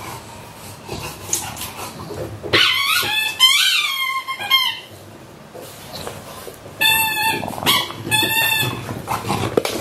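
An English bulldog squeezing a squeaky rubber toy in its jaws. There is a long wavering squeal about two and a half seconds in, then two short steady squeaks near the end.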